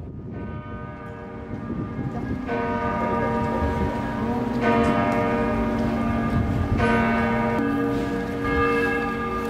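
Church bells pealing: several bells of different pitch strike about every two seconds and ring on over one another, swelling louder over the first few seconds.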